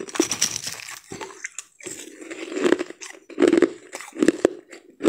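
Crushed ice crunching and crackling in irregular bursts: a rough grinding stretch at first, then several louder crunches in the second half.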